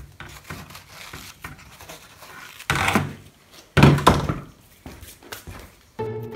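Two dull thumps about a second apart, with rubbing in between, as an old foam-padded door trim armrest is shifted and set down on a workbench. String music comes in at the very end.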